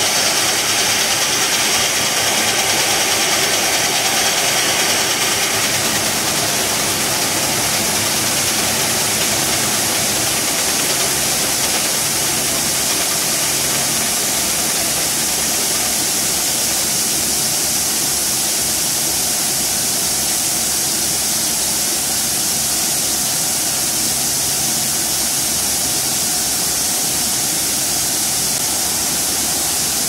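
John Deere 6620 combine's diesel engine running steadily at working speed while its unloading auger pours shelled corn into a gravity wagon. A rushing hiss of the grain stream over the engine fades about six seconds in as the unloading ends, and the engine runs on.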